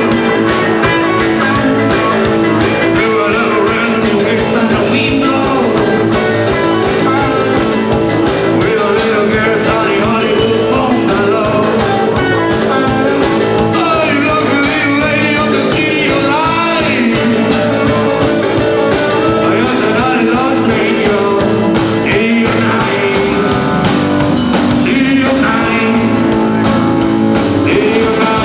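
Rock band playing live with a singer and guitar: continuous loud rock music.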